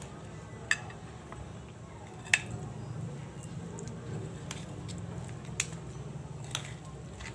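Metal fork stirring a moist corned beef filling on a ceramic plate: soft squishing with four sharp clinks of the fork against the plate, the loudest about two seconds in, over a low steady hum.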